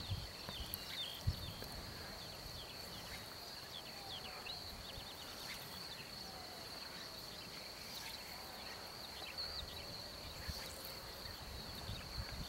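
Open-air meadow ambience: a steady high insect trill with many short, scattered bird chirps over it. Two low thumps come about a second apart near the start.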